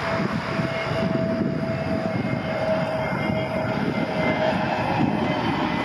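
Frontier Airbus A320 on landing approach passing low overhead with its jet engines throttled back. A steady, loud roar carries a thin whine, joined by a higher whine about two seconds in, both sinking slightly in pitch as the plane goes by.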